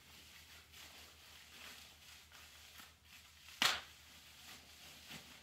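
Plastic packaging rustling faintly as small wrapped parts are handled and unwrapped, with one short, sharp crackle about three and a half seconds in.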